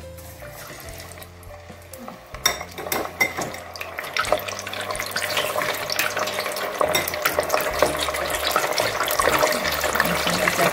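Pempek fish cakes deep-frying in hot oil in an electric deep fryer. It is fairly quiet at first, then from about two seconds in a dense sizzling crackle builds and grows louder as the pieces fry.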